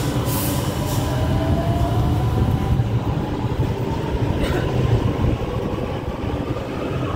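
Metro train noise at a station stop: a steady low rumble with an electric motor whine that slowly rises in pitch, like a train accelerating away, and a short hiss about four and a half seconds in.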